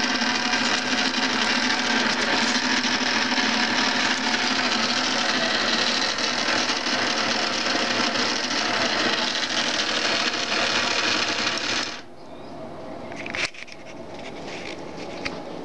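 Small electric gear motor of a tabletop automaton running steadily as it turns plastic gears and wire cranks. It stops abruptly about twelve seconds in, and a sharp click follows a moment later.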